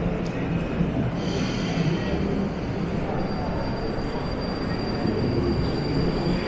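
Moscow Metro train running in the station: a steady low rumble of the moving train, with a thin high squeal coming in about a second in and holding steady.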